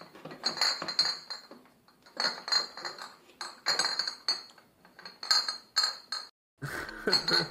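Glass bottles clinking together inside a backpack as it is jostled, in a series of separate bursts of clinking, breaking off briefly a little after six seconds.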